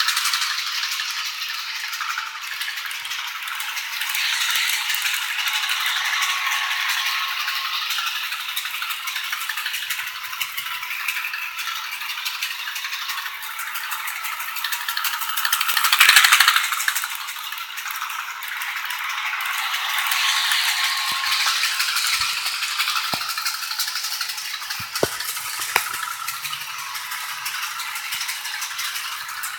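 Electric model train running around its track, with a steady rattling clatter of wheels and motor. The sound swells and fades as the train passes close, loudest about halfway through, and a few light knocks come near the end.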